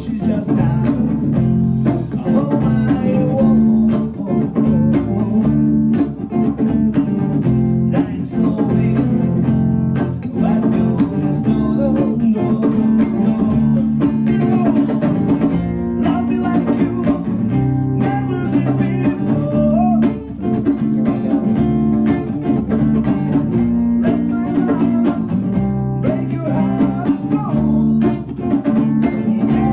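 Live band music: guitar chords and drums, with a sung vocal line.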